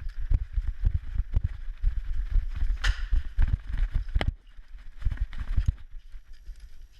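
Rapid, irregular low thumps of footfalls and gear jostling a worn GoPro camera while a player moves at pace, with two sharp clicks about three and four seconds in. The thumping lightens after about four and a half seconds.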